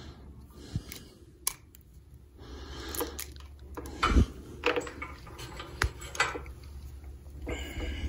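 Small clicks, taps and rustles of multimeter test leads and wiring being handled and clipped onto wire terminals, over a low steady hum.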